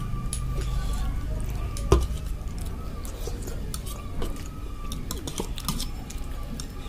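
Metal fork stirring and twirling soupy noodles in a bowl: scattered small clicks and wet squishes, with one sharper knock of the fork against the bowl about two seconds in.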